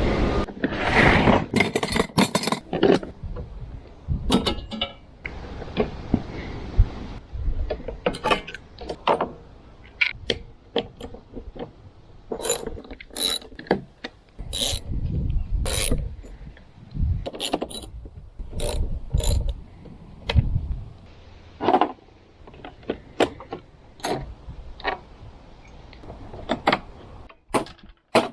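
Hand tools working on a push-mower deck: a socket ratchet clicking, with irregular sharp metal knocks and clanks as parts are unbolted and pulled off.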